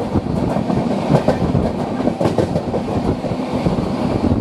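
Passenger coach of an electric-hauled express running along the track: wheels clattering over the rails with a dense, irregular rattle and knocking over a steady rumble, heard at an open coach door.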